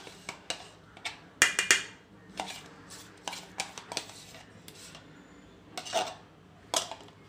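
A spoon scooping curd out of a plastic tub into a steel bowl of chicken: a string of sharp clicks, knocks and scrapes, the loudest cluster about one and a half seconds in and another near six seconds.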